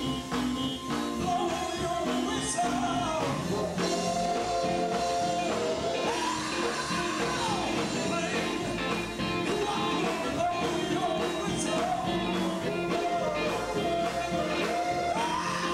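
Live gospel quartet music: a lead singer singing into a microphone with held, sliding notes over an electric guitar band keeping a steady beat.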